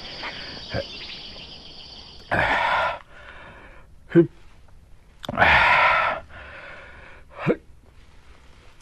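A man drinking water from a spring in a radio-play sound scene: two long breathy slurps and short gulping swallows between them. A steady high hiss of running spring water stops about two seconds in.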